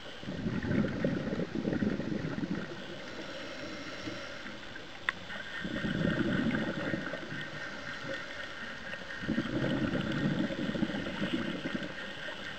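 Scuba diver's exhaled breath bubbling out of the regulator, three bursts about every four seconds with quieter stretches between. A single sharp click about five seconds in.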